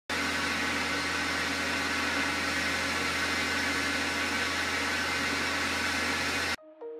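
Steady machine noise: an even hiss over a constant low hum. It cuts off suddenly near the end.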